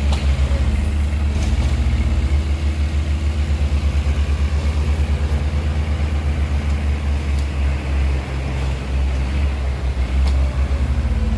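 Heavy diesel engine of earthmoving machinery running steadily, a low rumble that pulses evenly.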